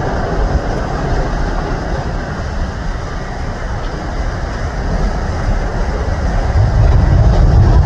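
Twin-engine widebody jet airliner on its takeoff roll, its engines at takeoff power making a steady low rumble that grows louder about six and a half seconds in.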